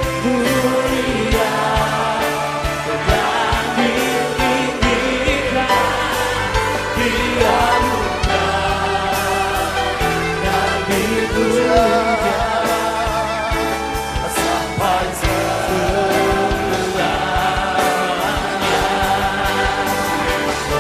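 Live worship music: a choir singing together over a band with bass and a steady drum beat.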